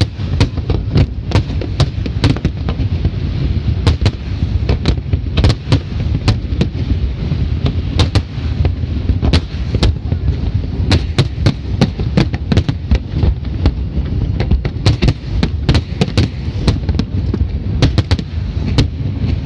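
Large fireworks display going off: many sharp bangs in quick succession over a heavy, continuous low rumble.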